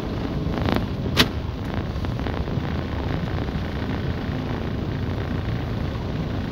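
Steady noise of a car driving slowly over a wet, puddled street, heard from inside the car, with one sharp knock a little over a second in.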